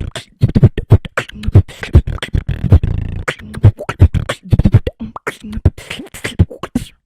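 Human beatboxing: a fast, dense run of vocal kick drums, snares and hi-hat clicks, with a short stretch of hummed bass tone about three seconds in.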